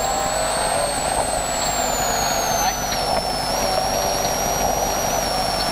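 BMW M3 rally car's engine heard from inside the cabin, its revs rising briefly and then falling from about a second in as the car slows into a hairpin right. A high whine rises and falls along with the revs.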